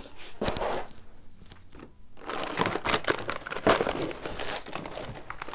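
Plastic snack packaging crinkling and rustling as it is handled and picked up, in two spells: about the first second, then again from about two seconds in.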